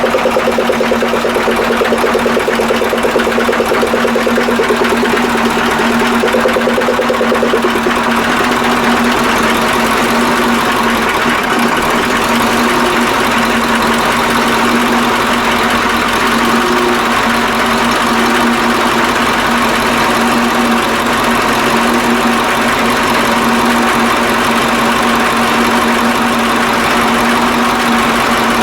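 KAMAZ 65225 truck's V8 diesel engine idling steadily, freshly rebuilt after a knock repair and running with no clear knock; only a faint metallic vibration in one injector fuel line is felt.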